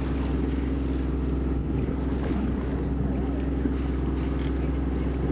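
Motorboat engine running at a steady pitch: a low, even drone that holds throughout.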